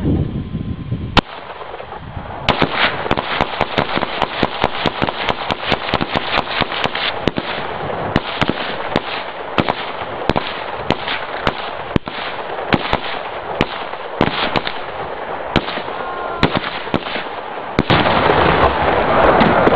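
Rifle fired over and over in quick succession: one shot about a second in, then a steady, irregular run of shots, two or three a second.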